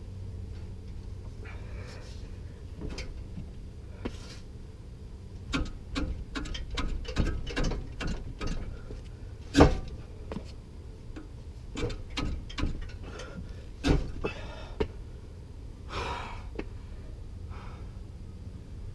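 Hand tools clicking and knocking against exhaust hardware under a car: a run of quick clicks through the middle, with a sharp metal clank about halfway and another a few seconds later, over a low steady hum.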